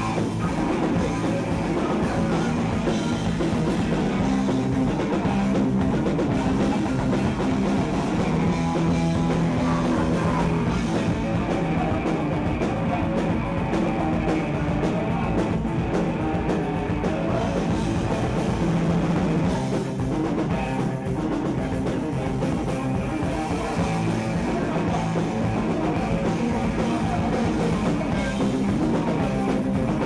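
Punk rock band playing live: electric guitar and drum kit with a singer shouting into the microphone, loud and without a break.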